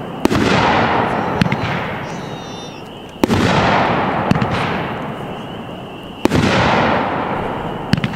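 A 16-shot, 1.5-inch firework cake (WINDA 'Fantastic Beast') firing its shells: three loud bursts about three seconds apart, each trailing off in a long fading rush of noise, with a few smaller pops in between.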